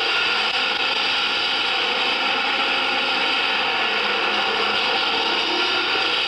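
Harsh noise-music soundtrack: a steady, dense wash of grinding, machine-like noise, strongest in the upper-middle range, with faint held tones beneath it.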